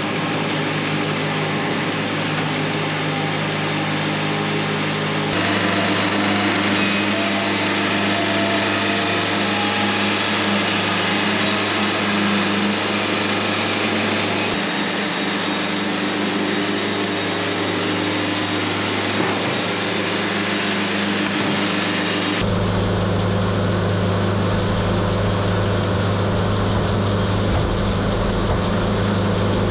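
Portable band sawmill running and cutting a poplar log: a steady engine drone under the blade's hiss through the wood. The sound changes abruptly twice, about five seconds in and again a little past twenty seconds.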